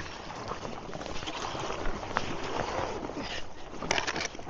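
Paddling on a river among drifting, breaking ice: water sloshing and splashing around the board, with a few sharp knocks and clicks.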